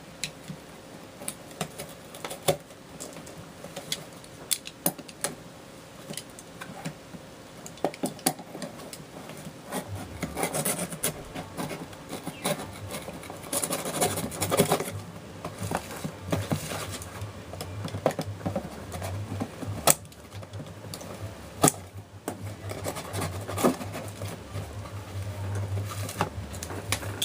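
Cardboard shipping package being handled and opened: scraping, rubbing and tearing of cardboard and tape, with many scattered clicks and knocks. A low steady hum comes in about ten seconds in.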